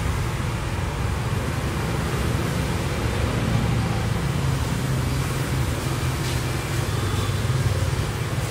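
Street traffic: motor scooters and cars passing, a steady low hum of engines and tyres.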